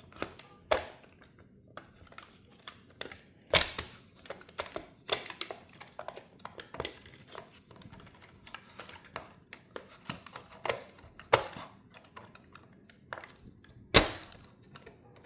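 3D-printed plastic engine parts clicking and knocking together as the pistons are fitted. The clicks come at an irregular pace, with a sharp knock a little over a second before the end.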